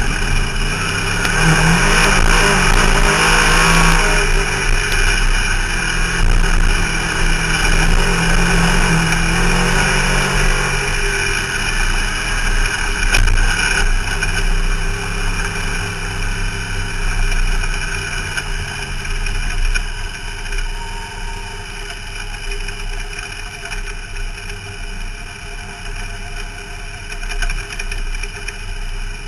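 Race car engine heard from inside the car, running hard with its pitch rising and falling, then slowing down about two-thirds of the way through and settling into a quieter, steady low run.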